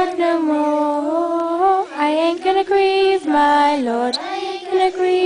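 A group of young girls singing a campfire song together in unison, unaccompanied, on long drawn-out held notes.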